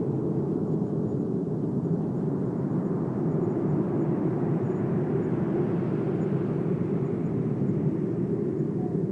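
Steady, even low rumble of outdoor ambience, with no distinct calls or events.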